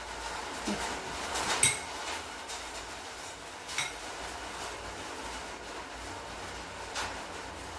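A metal teaspoon clinking a few times. The loudest is a sharp, ringing clink about one and a half seconds in, with a smaller one near four seconds and a faint tap near seven seconds.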